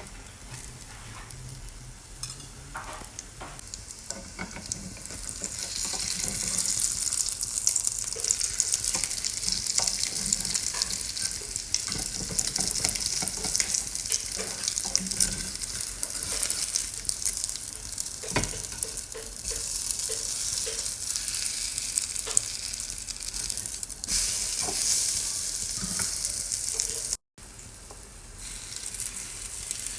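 French toast sizzling as it fries in a pan, the sizzle growing louder about five seconds in, with occasional light clicks. The sound drops out briefly near the end.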